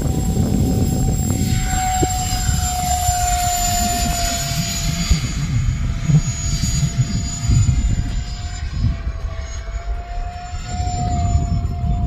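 E-flite Habu SS radio-controlled electric ducted-fan jet in flight: a steady high fan whine that dips and then rises slightly in pitch as it passes. Heavy wind rumbles on the microphone underneath.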